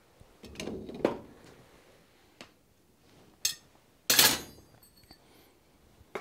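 A hot steel die block is set down on the anvil face with a sharp metallic clank and a brief high ring, about four seconds in. A few lighter knocks and clinks of tools come before it.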